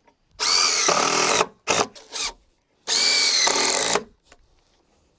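Power drill driving screws in two runs of about a second each, with short blips of the trigger between them, fixing wooden chocks under a handrail.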